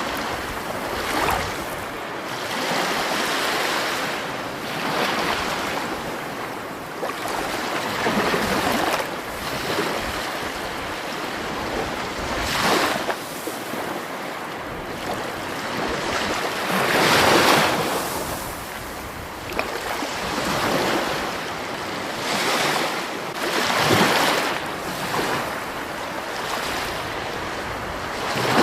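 Rushing water, a continuous wash that swells into louder surges and falls back every few seconds.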